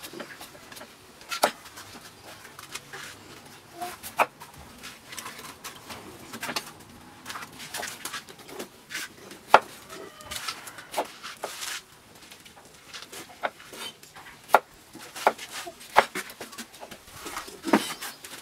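Cleaver cutting through a peeled raw vegetable and striking a wooden chopping board: irregular sharp knocks, some in quick runs, with short pauses between. Birds call faintly in the background.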